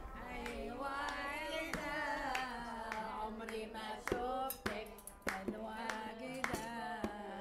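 A woman singing a wavering melody with vibrato, with sharp hand claps or hand-drum strikes landing irregularly underneath.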